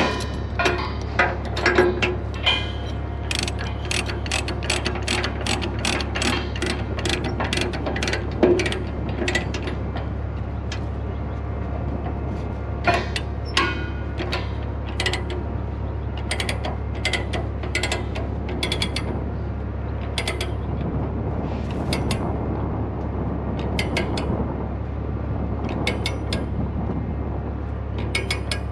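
Ratchet chain binder being cranked to tension a securement chain, clicking in an even run of about two clicks a second, then in shorter, broken runs. A steady low hum runs underneath.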